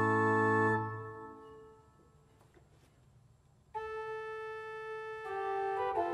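Church pipe organ playing: a held chord with deep bass notes is released about a second in and dies away in the church's reverberation. After a pause of about two seconds, a new phrase begins on sustained notes without the deep bass.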